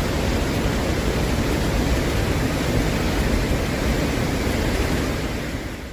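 Steady rush of a waterfall's falling water, fading out near the end.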